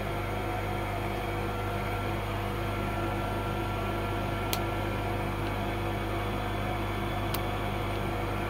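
Steady low electrical hum of workshop equipment, with two faint clicks about four and a half and seven seconds in as the LED board is handled with pliers.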